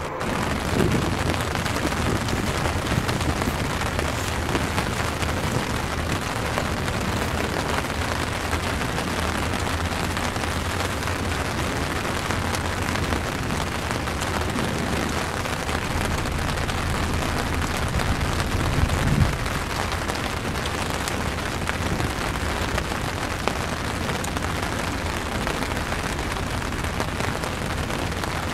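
Strong storm wind blowing hard across the microphone: a steady rushing noise with deeper rumbling gusts, heaviest about a second in and again about two-thirds of the way through.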